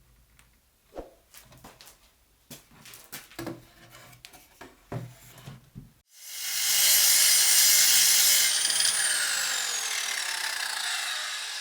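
Scattered light knocks and clicks of wood, then about six seconds in a circular saw starts and runs loud through a short crosscut. After that its motor whine falls in pitch as the blade spins down.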